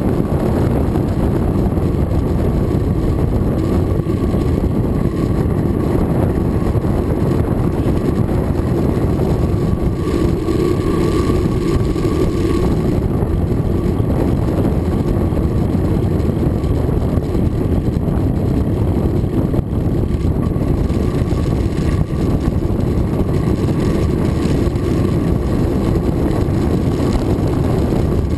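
Steady rush of wind buffeting a bicycle-mounted camera's microphone while riding, mixed with the hum of tyres rolling on asphalt.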